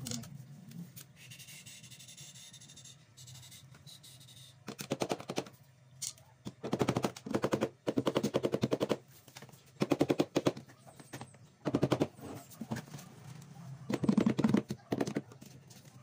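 Bursts of rapid mechanical clicking, about six runs of half a second to a second and a half each, from hand-tool work on a washing machine's gearbox and pulley.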